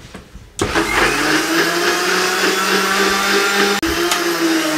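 Electric juicer-blender motor switching on about half a second in and running steadily at speed, grinding a watery tamarind and dried-plum pulp with garlic; it drops out for an instant just before the end.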